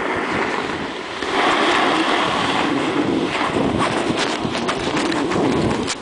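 Wind rushing over a handheld camera's microphone as it rides down the slope, mixed with the snowboard scraping over packed snow. From about three and a half seconds in come sharp knocks as a gloved hand brushes the camera.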